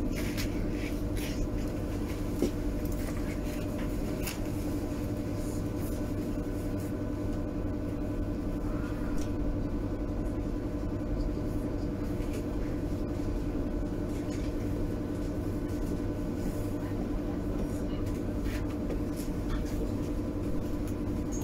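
Berlin U-Bahn H97 train heard from inside the car while running: a steady rumble with a steady electric hum and scattered faint clicks.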